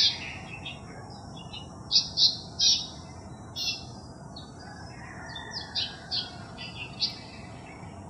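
Long-tailed shrike singing in short, loud, scratchy high notes: three close together about two seconds in, another near four seconds, then a quicker run of notes around six to seven seconds.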